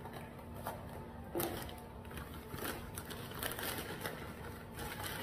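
Irregular rustling and clicking of fast-food packaging being handled, with the sharpest crinkle about a second and a half in.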